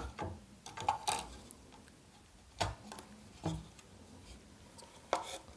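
A few light clicks and knocks at uneven spacing, the first as an AA battery is pressed into the plastic quartz clock movement's battery holder, the rest from the clock panel being handled.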